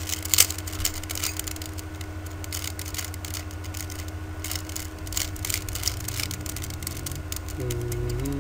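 Rubik's Cube being turned by hand: a quick, irregular run of plastic clicks and clacks as the layers are twisted, over a steady electrical hum.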